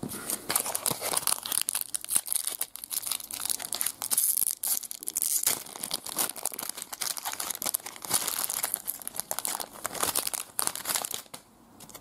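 Foil wrapper of a trading card pack crinkling and tearing as it is ripped open by hand, a dense, irregular crackle that stops near the end.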